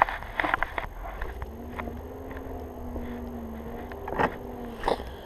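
A low, steady hum like a passing vehicle's engine for about three seconds, with two sharp knocks near the end.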